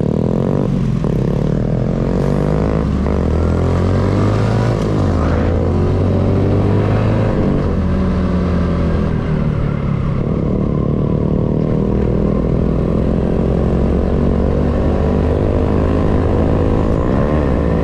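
Honda Biz 125's single-cylinder four-stroke engine pulling away and accelerating. Its pitch climbs twice, dropping back in between as it shifts up, then it holds a fairly steady cruise.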